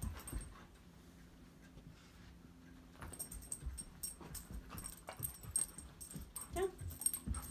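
Golden retriever moving about excitedly: a quick run of small clicks and jingles from its paws and collar starting about three seconds in, with one short rising whine near the end.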